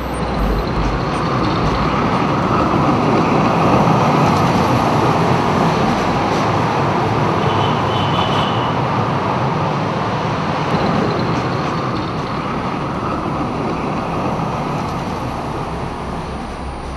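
A city tram (streetcar) passing by: a dense rumble that grows louder over the first few seconds and then slowly fades away. A brief high squeal comes about halfway through.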